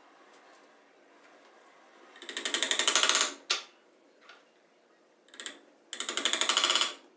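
Claw hammer tapping small nails into a wooden frame. It comes in two bursts of very rapid, evenly spaced taps, each about a second long and growing louder, about two seconds in and again about six seconds in.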